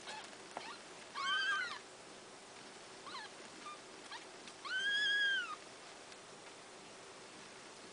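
Day-old kittens mewing while they nurse: two loud, high-pitched cries that rise and fall, each under a second long, with a few fainter short squeaks between them. In the owner's account the cries came from hunger: the mother's milk was not enough and the kittens needed supplemental feeding.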